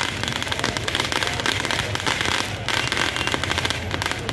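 A firework waterfall, a row of fountains hung along a wire showering sparks, burning with a dense, continuous crackle of rapid pops.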